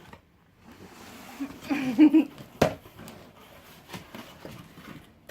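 A cardboard subscription box and its packaging being handled and opened by hand: rustling, with a sharp click about two and a half seconds in and a few lighter clicks later.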